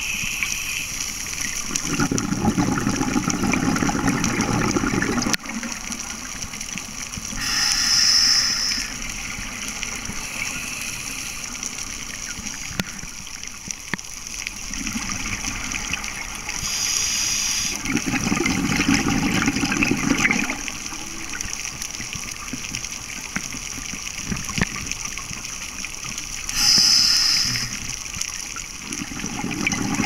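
Scuba diver breathing through a regulator underwater: about every nine seconds a short hissing breath in, then a longer low bubbling rush of exhaled air.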